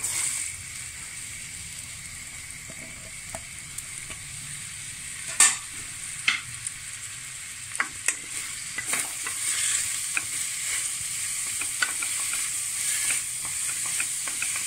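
Sliced onions sizzling as they hit hot coconut oil in a pressure cooker and fry, with a steady hiss that starts at once. A wooden spatula stirring them knocks and scrapes against the pan now and then, the sharpest knock about halfway through.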